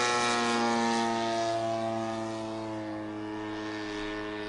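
Radio-controlled model aircraft's engine and propeller running at steady power, its note drifting slowly lower in pitch as it fades.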